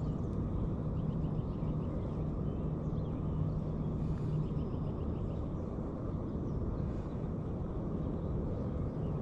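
Steady low outdoor rumble with a low hum that fades out about halfway through, and a few faint high chirps.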